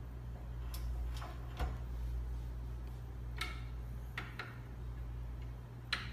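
Sharp clicks and light taps, about seven in a few seconds and irregularly spaced, as the parts of a universal length measuring instrument's measuring stage are handled and adjusted by hand. A low steady hum sits underneath.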